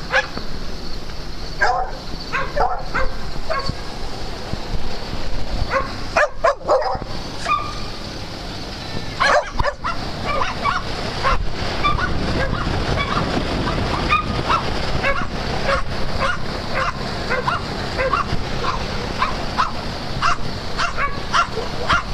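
Several dogs barking and yipping over and over in short calls, with some whimpering.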